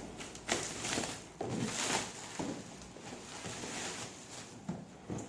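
A box of firecrackers being opened and handled: rustling packaging with a string of light knocks and clicks.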